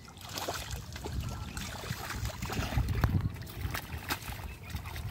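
Hands sloshing and squelching through thick mud and shallow muddy water, with irregular splashes and slaps as fish are grabbed.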